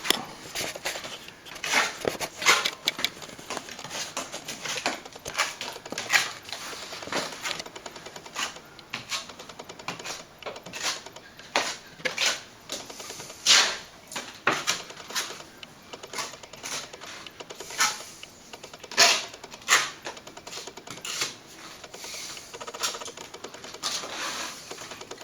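Hand plastering tool scraping and tapping against wet cornice cement and plaster as the joint around a plaster vent is smoothed off, in short irregular strokes, a few of them louder.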